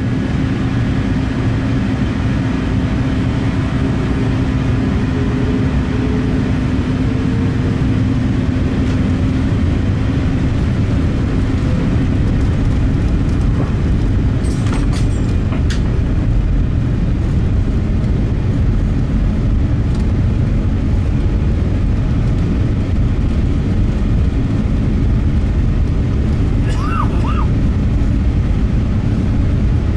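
Airliner engines and airflow during a departure, heard from inside the passenger cabin as a steady, low-heavy noise. A few clicks come about halfway through, and two short high tones come near the end.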